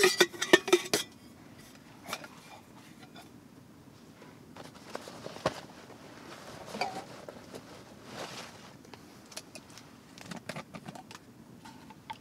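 Metal camping mug and the cookware nested inside it clinking and rattling as they are taken apart, a quick run of ringing clinks in the first second. Then scattered knocks and clicks as the pieces are set down on the ground and handled.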